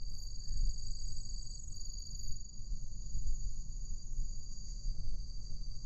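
Insects trilling steadily: an unbroken high-pitched chorus holding two tones, over a low rumble.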